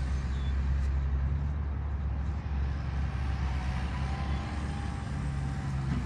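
Truck engine running steadily nearby: a low, even rumble.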